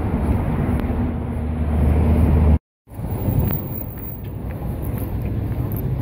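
City road traffic beside a sidewalk: a vehicle's engine hum grows louder as it passes close by, then the sound drops out abruptly for a split second about two and a half seconds in, and quieter, steady traffic noise follows.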